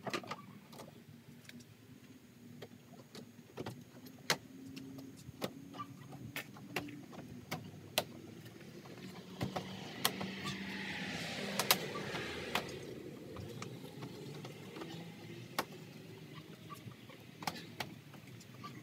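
Scattered light clicks and taps of vinyl post-wrap pieces being handled and pressed into place around a porch post. A passing vehicle swells and fades about halfway through, the loudest sound here.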